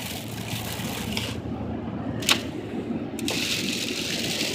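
Inside a car driving on a wet highway in the rain: a steady hiss of tyres on the wet road and rain on the car. The high part of the hiss drops out for a couple of seconds in the middle, with one sharp click, then comes back stronger.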